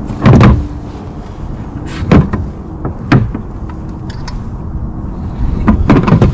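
Several sharp knocks and thumps against the kayak as a freshly caught bass is handled and laid on a measuring board, with a cluster of knocks near the end.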